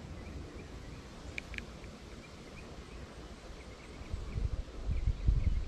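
Outdoor pond-bank ambience with faint, short, high chirps repeating from a small animal. Two sharp clicks come about a second and a half in. Low rumbling on the microphone builds over the last second and a half.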